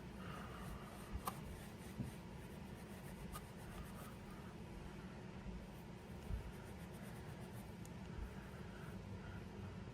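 Fine 0000 steel wool rubbing over a freshly blued steel ratchet part, faint scratchy strokes evening out the bluing, with a few light clicks of metal on metal.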